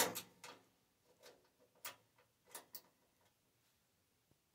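Small ratchet socket wrench clicking as it turns a screw in a TV cabinet's back panel: a few faint, irregular clicks, stopping about three seconds in.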